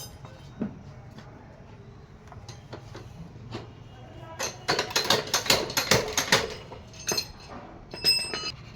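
Metal hand tools and parts clinking and rattling during work on a motorcycle's clutch side, with a dense run of quick clicks and rattles for about two seconds in the middle and a short metallic ring near the end.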